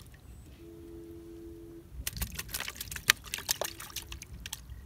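Water splashing in a plastic bucket as a freshly caught climbing perch is unhooked in it: quick, irregular splashes and drips starting about two seconds in. Before that, a brief steady low hum.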